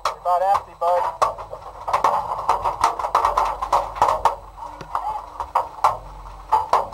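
Paintball guns firing in quick, irregular pops, with muffled shouting in the first second.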